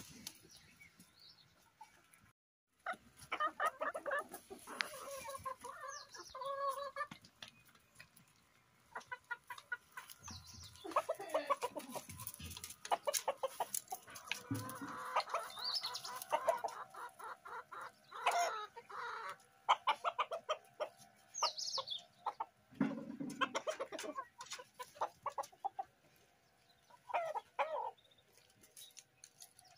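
Free-range desi (gavran) chickens clucking in repeated bursts with short pauses between them.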